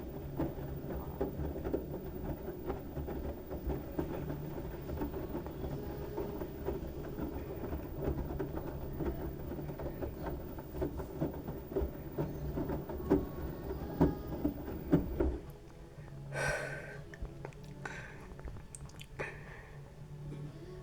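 LG washing machine drum turning a load of wet towels: a steady rumble with frequent knocks that cuts off suddenly about 15 seconds in, leaving a quieter hum and a few short rushing sounds.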